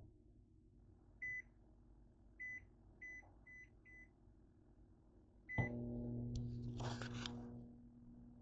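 Microwave oven keypad beeping five times as its buttons are pressed, then a sixth beep as it starts and the oven begins running with a steady hum about five and a half seconds in, set to defrost.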